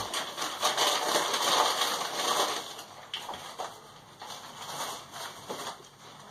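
Newspaper wrapping rustling and crinkling as a wrapped item is pulled from a gift bag and unwrapped. The rustling is dense for the first few seconds, then turns to scattered crackles.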